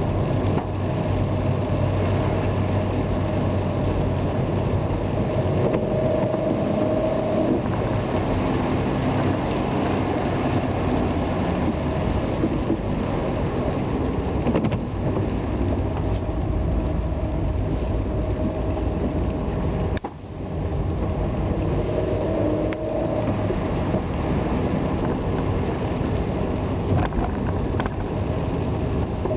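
Vehicle driving on wet roads in the rain: engine running with steady road and tyre noise, its pitch drifting up and down, and a brief dip in the sound about twenty seconds in.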